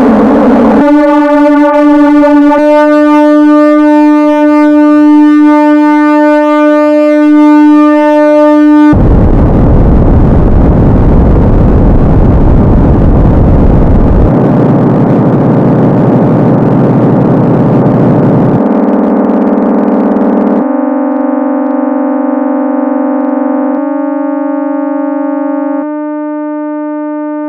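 Sine-wave tones generated in the Desmos graphing calculator, summed at different frequencies and amplitudes and played loud. Steady buzzing chords are each held for a few seconds and switch abruptly to the next. A harsh, noisy stretch comes about a third of the way in, and the tones get quieter near the end.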